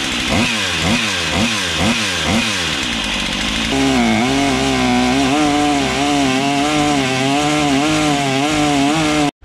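Stihl 088 chainsaw's two-stroke engine driving a propeller in a water tank: revved in quick blips about twice a second, then held at high revs as the prop churns and sprays the water. The sound cuts off suddenly near the end.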